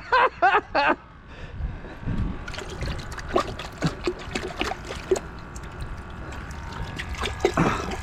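Water trickling and splashing, with many small irregular clicks and drips from about two seconds in. It opens with three short voiced sounds.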